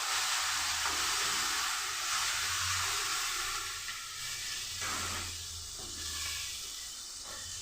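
Masala sizzling with a dense, steady hiss in a pan of hot oil as tamarind pulp goes in; the hiss slowly eases over the seconds.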